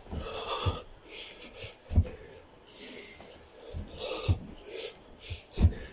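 A man breathing hard and wheezing through a long set of burpees, with dull thuds about every second or two as his hands and feet hit the carpeted floor.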